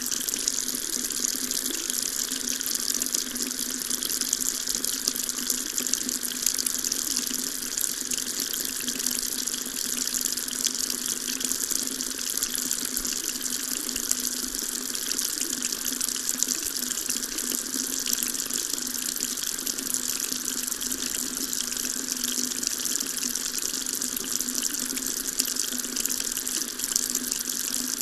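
Water tap running steadily, a continuous splashing stream of water.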